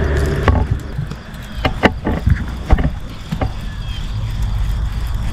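Low, steady rumble of water and wind around a small fishing boat, with about half a dozen sharp clicks and knocks at irregular moments.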